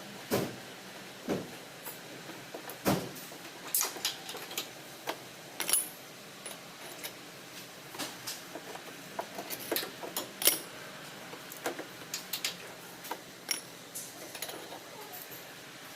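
Irregular metallic clicks and clinks of tools and parts being handled, a few every second, over a faint steady hum.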